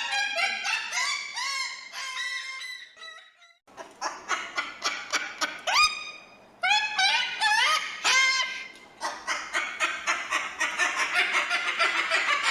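Cockatoo calling: quick runs of short rising squawks, a brief pause about three seconds in, then more squawks that run into a long harsh screech in the last few seconds.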